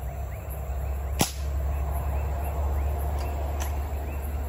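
A single sharp crack about a second in, the loudest sound here. Behind it are a steady low rumble and short chirps repeating about twice a second.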